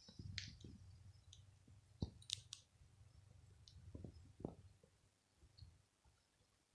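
Near silence: room tone with faint scattered clicks and soft knocks, the sharpest knock about two seconds in.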